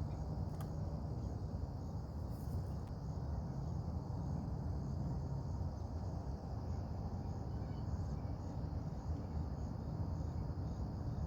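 Steady high insect chorus, faintly pulsing, over a low steady rumble, with a faint tick about half a second in.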